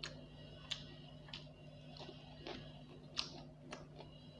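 Eating sounds: irregular small, sharp clicks and smacks, about seven in four seconds, from chewing a fried egg and a spoon touching the plate, over a faint steady hum.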